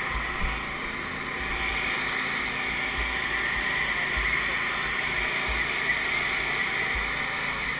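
A steady mechanical drone of engines running, with irregular gusts of wind buffeting the microphone.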